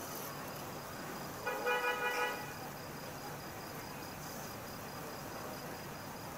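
Crickets chirping steadily through the night, with a short car horn toot from a distance about a second and a half in.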